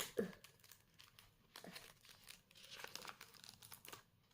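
Plastic packaging crinkling and rustling in short, scattered crackles as it is handled, busiest about three seconds in.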